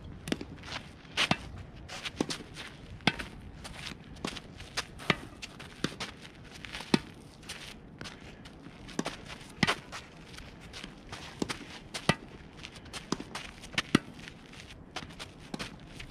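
Shoes tapping and scuffing on a dirt tennis court in a quick, irregular run of small steps, with sharper knocks every second or two.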